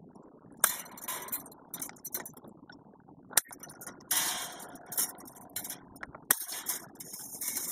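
Fence wire and the chain wire strainers clinking and rattling as the wire is handled and worked by hand. A few sharp metallic clicks stand out among short spells of jingling and scraping.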